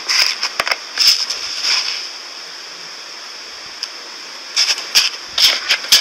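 Fingers pressing into iceberg slime, a fluffy slime with a dried crust, packed in a plastic compartment box. It gives off clusters of quick crackling crunches, with a lull in the middle before the crackling picks up again.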